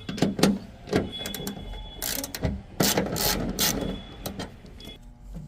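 Plastic trim and tail-light parts being handled and worked: a run of sharp clicks and knocks, with a couple of seconds of scraping about two seconds in.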